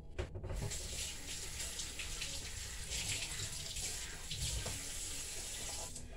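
Water running from a kitchen tap into the sink, a steady rush that stops near the end.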